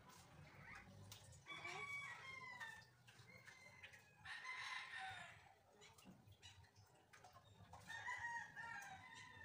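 Roosters crowing faintly, three long crows with slightly falling pitch, one near the start, one midway and one near the end.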